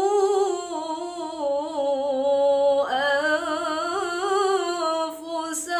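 A woman's voice reciting the Qur'an in melodic tilawah style, drawing out long ornamented notes that waver in pitch. A short breath break comes about halfway through, and then a new phrase begins.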